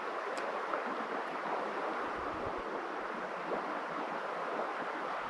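Steady rush of a swollen river flowing past, an even hiss without a break.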